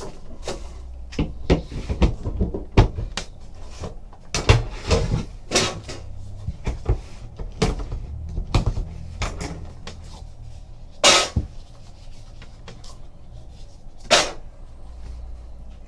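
Trading-card hobby box and its packaging being opened and handled by hand: scattered clicks, taps and rustles of cardboard and wrapping, with a few louder sharp rustles about four and a half, eleven and fourteen seconds in.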